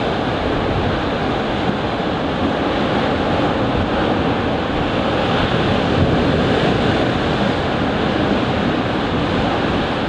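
Sea surf breaking against concrete breakwater blocks: a continuous rushing wash of waves, with a slightly louder break a little past halfway.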